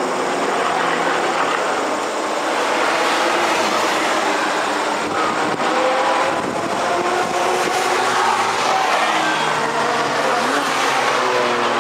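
Track-day cars accelerating through a corner, engines pulling hard with notes that rise and fall as the drivers work the throttle and shift. A BMW M4 comes closest near the end.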